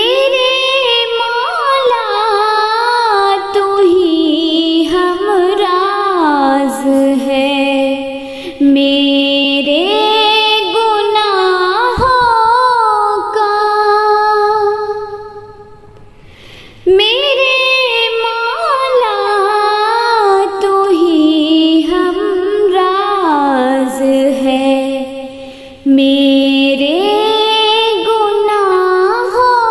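A woman singing an Urdu hamd unaccompanied, in long, ornamented phrases that slide between notes, with a short break for breath about halfway through.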